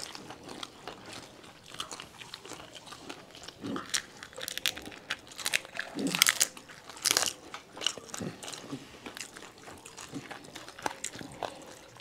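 Pani puri being bitten and chewed: crisp, hollow puri shells crunching in irregular, sharp bursts, with chewing between them.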